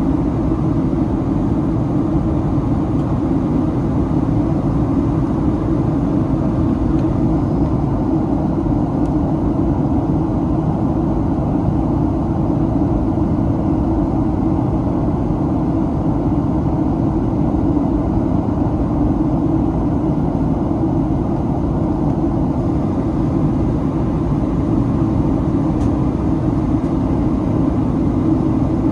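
Steady cabin noise inside a Boeing 737-800 in flight: a low, even rumble of its engines and the air rushing past the fuselage, unchanging throughout.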